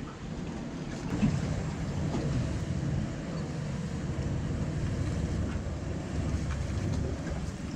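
Wind rumbling on the microphone over water sloshing against a small boat's hull, with a light knock about a second in.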